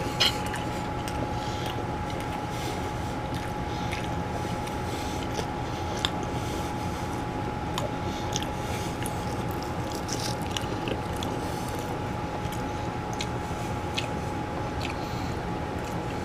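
A person biting into and chewing a crisp air-fried chicken thigh: small scattered mouth clicks and chewing noises, with a slightly louder bite just after the start, over a steady background hum.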